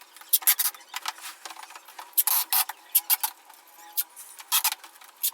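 Packing materials being handled: an irregular run of short, scratchy rubbing and rasping sounds, several a second.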